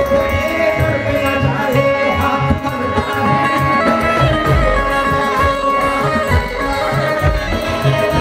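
Qawwali ensemble playing an instrumental passage: harmonium holding and stepping between sustained notes over a steady hand-drum beat.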